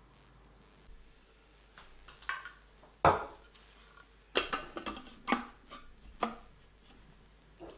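Thermomix TM6 plastic lid being set onto the steel mixing bowl and pressed into place: a series of clunks and clicks, the loudest about three seconds in, then a quick cluster of clicks.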